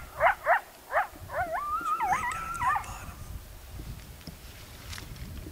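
Coyote vocalizations from a predator call opening a calling set: four quick, falling yips, then a wavering howl that rises and falls for about a second and a half before stopping.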